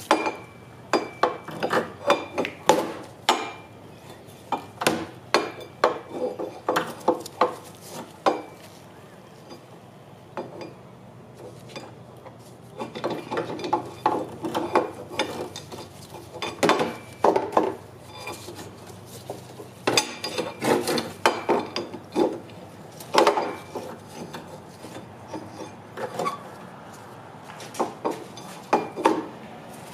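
Hand tools and metal brake parts clicking, tapping and scraping as a go-kart's rear brake caliper and carrier are fitted to the axle. The sound comes in irregular bunches of quick sharp clicks with short quieter gaps between them.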